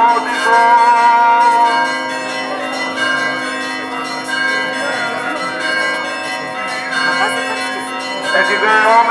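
Church bells ringing continuously, struck again and again so that their tones overlap.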